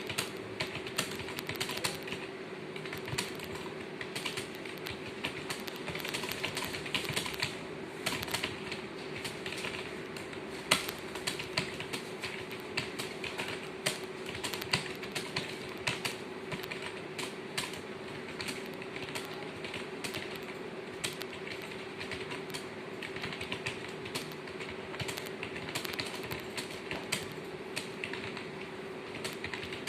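Continuous fast typing on keyboards, a dense, irregular clatter of keystrokes during a timed typing test, over a steady low hum.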